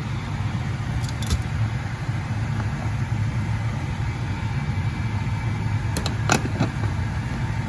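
A steady low machine hum, with a light clink about a second in and another about six seconds in.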